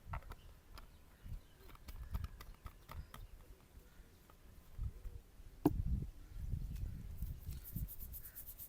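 Hands massaging a man's head and neck: irregular dull pats and thumps on the scalp, with one sharp click a little past halfway.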